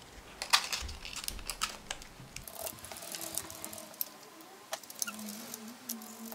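Scattered light clicks and rattles of a 3D-printed plastic fidget spinner and its skateboard bearings being handled, with short rasps of sandpaper rubbing the printed plastic.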